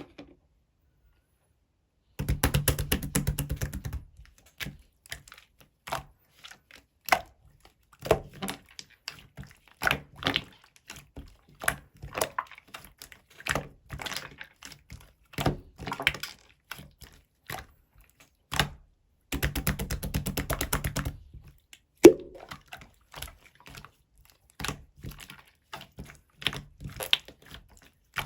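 Irregular taps and clicks of small hard objects being handled, with two stretches of fast rattling clicks, about two seconds in and again past the middle, and one sharp knock shortly after the second.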